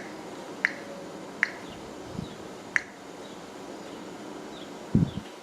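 Four sharp clicks of the keys on a Samsung Brightside SCH-U380 cell phone being pressed one after another, entering a four-digit security code, then a low thump near the end.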